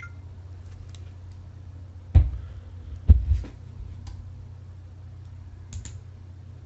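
Steady low electrical hum through the microphone, broken by two loud thumps about two and three seconds in and a fainter knock near the end.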